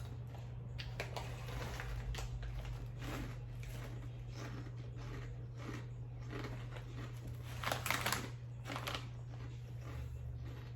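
Irregular crunches and crackles from someone eating crunchy snack chips, the loudest cluster about eight seconds in, over a steady low hum.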